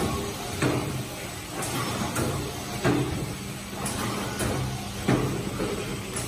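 Box film overwrapping machine running: a steady low hum under sharp mechanical clacks that come about once a second.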